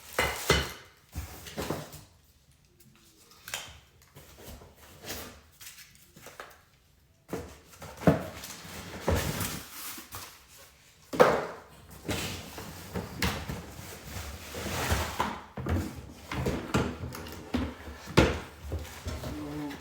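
Irregular knocks, clacks and rustling from dethatcher parts and packaging being lifted out of the box and handled, with a quieter stretch early on.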